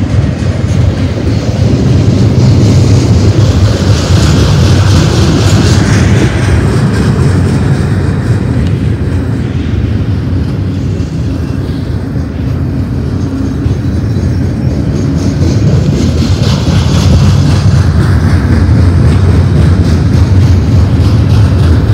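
BNSF double-stack container freight train rolling past close by: a steady, loud rumble of steel wheels on the rails, with the higher, hissy part of the noise swelling briefly twice.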